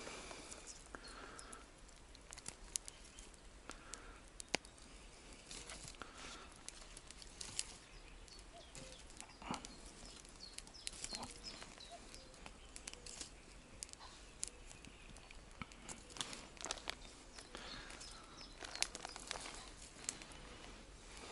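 Small wood campfire crackling with sharp, irregular pops, while sticks are pushed and shifted in the embers.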